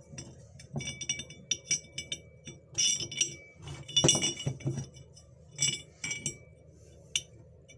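Steel bolt clinking against a drilled steel block while it is fitted through the holes: a series of short, irregular metallic clinks, some leaving a brief ringing tone.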